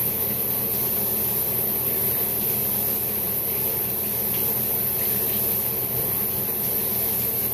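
Tap water running steadily into a sink while something is rinsed off under it.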